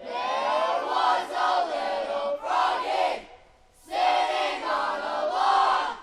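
A group of people shouting a team cheer in unison: two long chanted calls, the second starting after a short break about three and a half seconds in.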